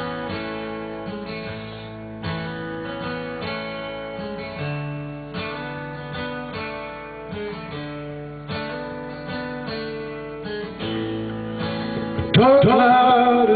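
Country song intro: guitar playing a slow chord pattern, with the lead singer's voice coming in near the end.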